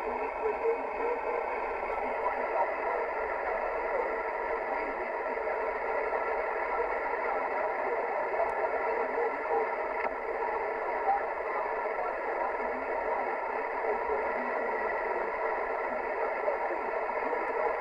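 Kenwood TS-50 HF transceiver's speaker receiving a 14.200 MHz upper-sideband signal: a steady, thin, telephone-like hiss of band noise with a weak voice buried in it.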